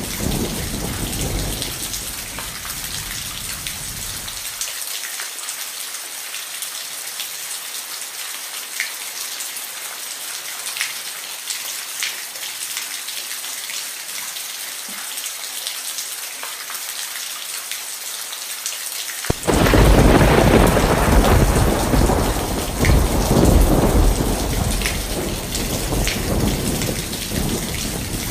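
Rain falling steadily with thunder: a low rumble dies away over the first few seconds, then about 19 seconds in a loud thunderclap breaks suddenly and rumbles on for several seconds before easing.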